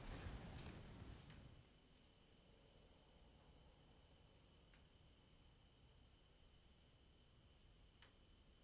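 Faint crickets chirping at night: a steady high pulsing trill, about three pulses a second, over near silence, with a faint click near the end.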